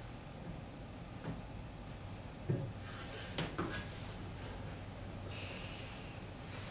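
A metal ladder knocking as someone climbs it. The loudest is a sharp thump about two and a half seconds in, with a few lighter knocks and short hissing noises after it, over a low steady hum.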